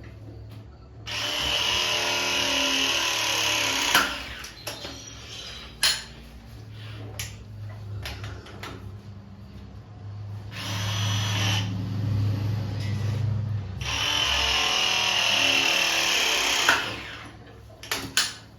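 Power drill running in three bursts of a few seconds each, with short knocks between them and a low hum under the middle burst.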